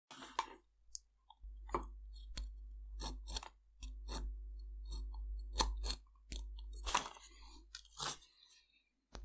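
Small clicks and crackles of stiff wires being worked through a plastic battery housing, over a low hum that comes and goes.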